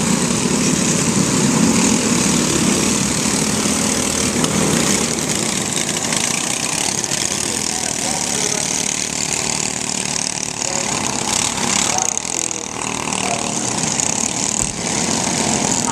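A pack of microstock race cars running laps together, their small engines making a steady, continuous noise.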